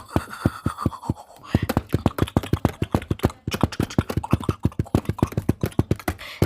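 Quick, irregular fingertip or fingernail tapping on a camera and its microphone, many sharp taps a second.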